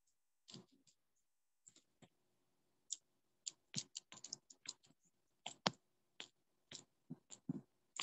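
Faint, irregular clicking of computer keys, a few clicks a second with short gaps, sparse at first and quicker after about three seconds.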